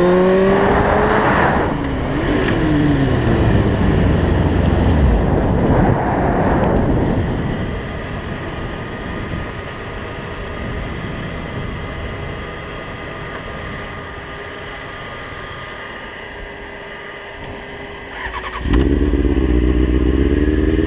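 Motorcycle engine accelerating hard, its pitch rising, then easing off and falling away to a quieter, steady run with a rushing haze. Near the end it suddenly opens up again into another loud, rising acceleration.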